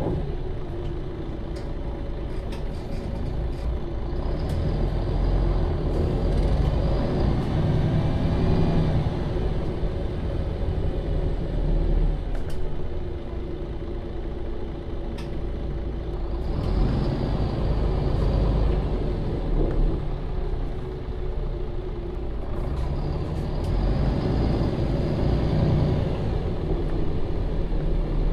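MAN Lion's City NL 283 city bus running in service, its diesel engine and automatic transmission pulling harder three times, with a rising tone in the first, between quieter spells of coasting and idling. Short clicks come and go over the drive noise.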